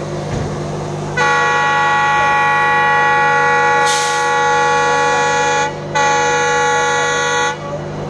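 Ranikhet Express locomotive's multi-tone air horn sounding as the train runs through a station without stopping. One long blast of about four and a half seconds is followed, after a brief gap, by a shorter blast. The train's steady running hum continues underneath.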